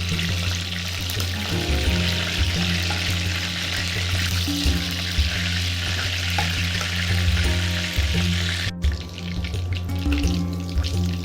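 Food frying in hot oil in a pan, a steady sizzle under background music with low sustained notes. About three-quarters of the way through there is an abrupt cut, after which the sizzle is quieter.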